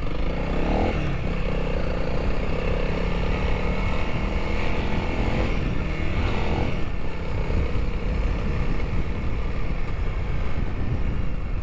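Honda CRF300L's single-cylinder engine running under way, its pitch rising in the first second and then holding steady, with a constant low rumble underneath.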